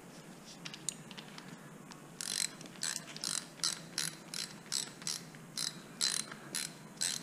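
Ratchet wrench clicking in quick strokes, about two to three a second, as it turns a socket on an extension to undo a fastener on the end of a Honda CRF110 fork leg. A few faint clicks come first; the steady stroke-after-stroke clicking starts about two seconds in.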